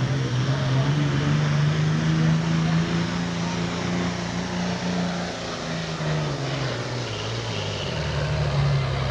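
Heavy diesel super stock pulling tractor's engine running hard under the load of the sled. Its pitch climbs over the first couple of seconds, sags from about halfway through, and picks up again near the end.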